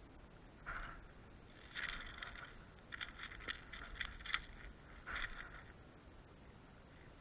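Short bursts of scraping and rattling, five or so over about five seconds with one sharp click near the middle, as a metal fishing lure with treble hooks and a freshly caught barracuda are handled and unhooked on concrete.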